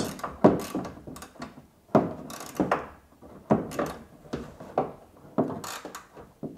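Irregular knocks and clicks, about a dozen, as hands press a stack of polyurethane foam rings onto a velomobile's rear suspension.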